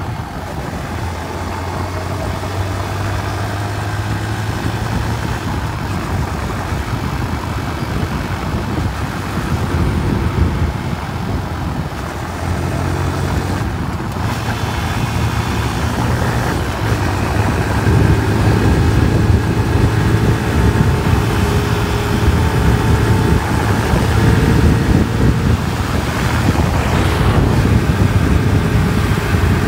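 Yamaha R15's single-cylinder engine running steadily as the motorcycle rides along, with a rush of wind noise, gradually getting louder.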